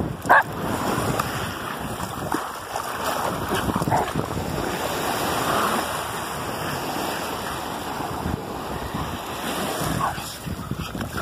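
Steady rush of wind and surf at a beach, with wind buffeting the microphone. A short, loud high-pitched sound stands out just after the start.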